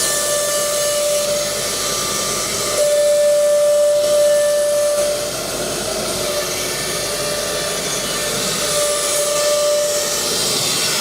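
High-speed spindles of a four-spindle CNC router running, a steady whine over a wide hiss. The whine grows louder from about three seconds in, fades a couple of seconds later and returns briefly near the end.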